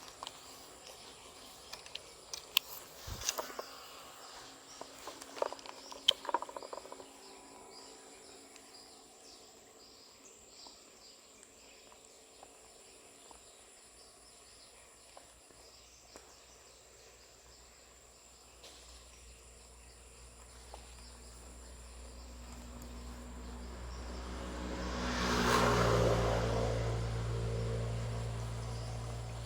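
Outdoor background of insects with a few sharp clicks and knocks in the first several seconds. Later a motor vehicle's engine comes up gradually, loudest a few seconds before the end, then starts to fade as it passes.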